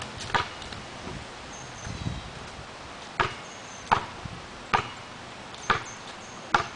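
Basketball bouncing on a concrete walkway as a child dribbles it: one bounce just after the start, then five bounces a little under a second apart in the second half.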